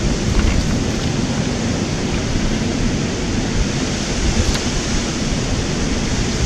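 Steady roar of sea surf breaking on a pebble beach, with wind buffeting the microphone as an uneven low rumble.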